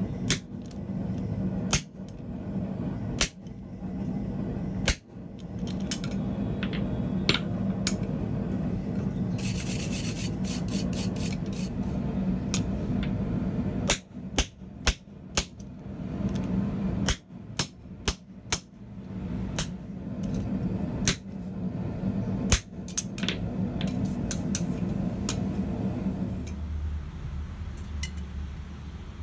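Hammer blows on the top die of a blacksmith's guillotine tool, fullering a hot steel spatula handle on the anvil: sharp metallic strikes at irregular intervals, with a quicker run of blows in the middle. A steady low rumble sits beneath and gives way to a lower hum near the end.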